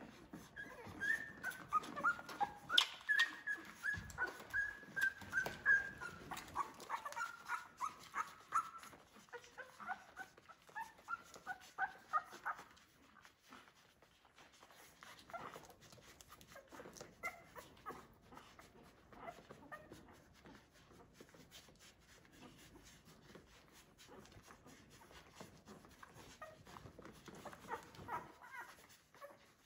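Two-week-old Australian Labradoodle puppies squeaking and whimpering while they nurse: a busy run of short, high squeaks for the first dozen seconds, then fainter, scattered squeaks.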